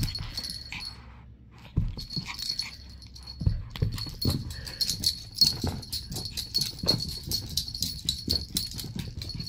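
Chihuahua puppy playing rough on a carpet, its collar jingling with many quick clinks, along with light thumps and scuffles. There is a brief lull just over a second in.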